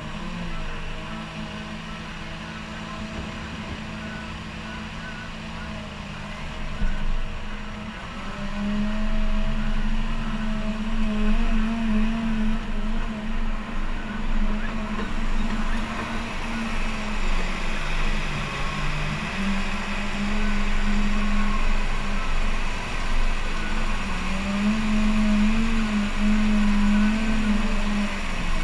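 Cat 930K wheel loader's diesel engine running. It is fairly low for the first seven seconds, then revs up about eight seconds in and stays working harder, its pitch dipping and rising as the loader dumps sand, drives, and pushes its bucket into a sand pile.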